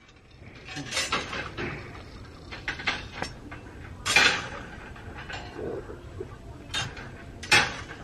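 Steel rebar and wire stirrups clinking and rattling against one another as a reinforcing column cage is assembled: irregular metallic clinks, the sharpest about four seconds in and again near the end.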